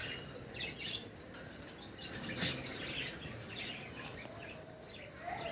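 Cockatiels chirping with short, scattered calls; the loudest call comes about two and a half seconds in.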